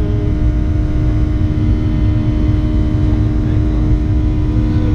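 Boeing 737-800's CFM56-7B turbofan engines at climb power just after takeoff, heard from inside the cabin beside the wing: a loud, steady low rumble with a steady hum over it.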